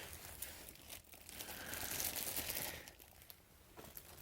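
Packaging crinkling and rustling as it is handled, with a few small clicks, loudest in the middle of the stretch.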